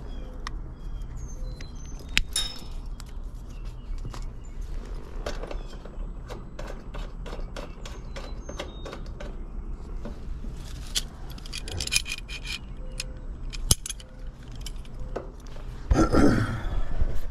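Metal hand tools and brass refrigerant-hose fittings clicking and clinking as they are handled, with a brief run of jangly metallic clinks partway through. Near the end there is a louder burst of rustling and handling noise.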